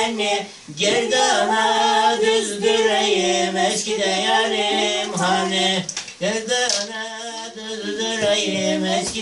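Unaccompanied singing of a melody over a steadily held low note, with the phrases broken by short pauses about a second in and about six seconds in.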